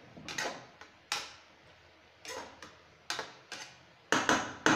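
Metal spoon scraping and clinking against a nonstick wok while stirring chicken pieces and onions: separate scrapes about once a second, with the loudest clinks near the end.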